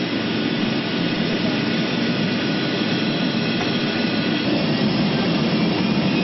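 Jet airliner engines heard from inside the passenger cabin: a steady, loud rumble and rush, growing slightly louder toward the end.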